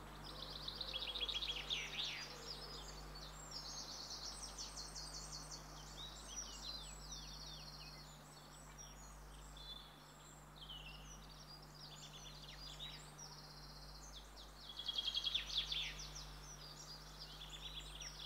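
Songbirds chirping and singing high-pitched rapid trills, a busy chorus of overlapping calls, swelling about a second in and again near the end, over a faint steady low hum.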